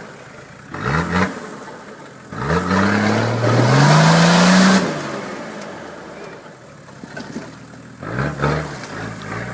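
Vehicle engine revving off-road: a short rev about a second in, then a longer rev climbing in pitch with a loud rush of noise at its peak, and another short rev near the end.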